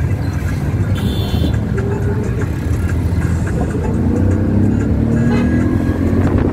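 A motor vehicle running, with steady engine and road noise; the engine note rises in the second half.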